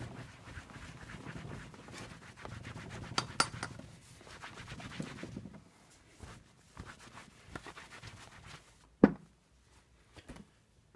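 Cloth rubbing briskly over the padded seat of a Raleigh Chopper bike, polishing it: a dense run of fast scratchy strokes that dies away about halfway through. Then a few light clicks and one sharp knock near the end.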